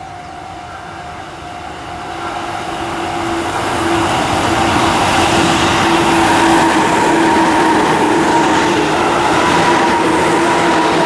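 Tobu 9000 series electric train passing, its running noise growing louder over the first few seconds and then holding, with a steady whine in two pitches.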